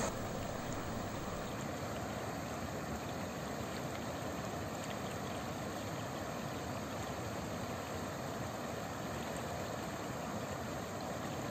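Steady, even rush of floodwater in a swollen, overflowing stream.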